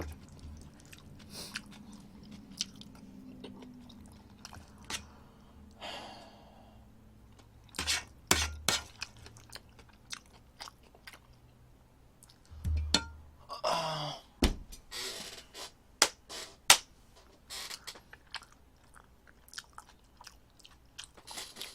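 A person chewing eggs close to the microphone, with wet mouth sounds and scattered short clicks.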